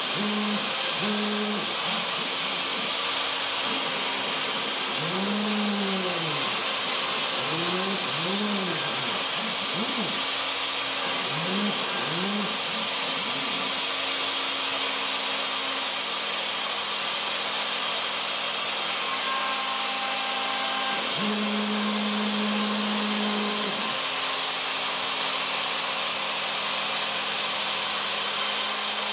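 Craftsman 2 hp router running steadily with a high whine as a 1/16-inch tapered ball-nose bit profiles letters in cedar. Under it the CNC machine's axis motors sing in tones that swoop up and down as the head traces curves for the first half, then hold a steadier pitch on longer runs.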